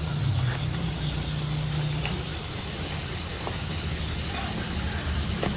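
Garden hose running water onto loose potting mix in a plastic pot, over a steady low motor hum that stays unchanged throughout.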